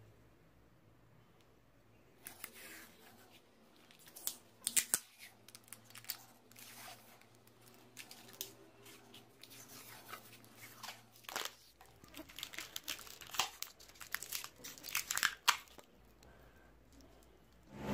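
Packing tape pulled off its roll in irregular rasping strips and pressed around an axe head, with the tape crinkling as it is handled.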